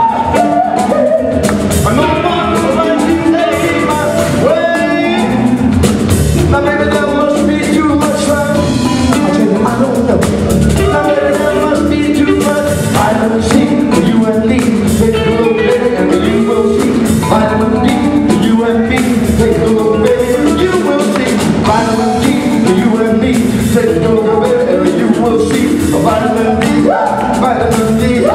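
A live band playing with electric guitar, bass and drum kit, and a man singing into a microphone over it.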